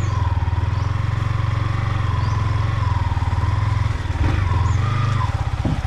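Yamaha MT-15's 155 cc single-cylinder engine running steadily as the motorcycle is ridden slowly under light throttle, a low pulsing putter that eases briefly about four seconds in.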